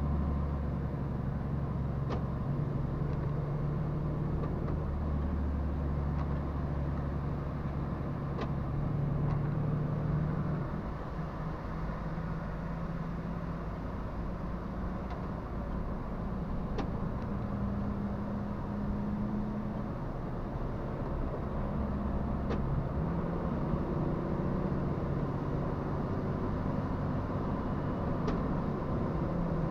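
Truck's diesel engine running on the move, a steady low drone whose pitch shifts up and down a little as engine speed changes, over road noise, with a faint click every few seconds.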